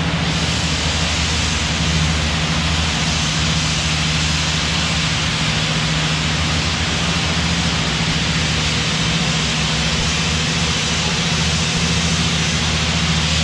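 Tennant ride-on floor scrubber running, its vacuum and brushes sucking up the water and blasting media off the concrete. Vapor-blasting equipment runs with it. Together they make a loud, steady hiss over a low machine hum.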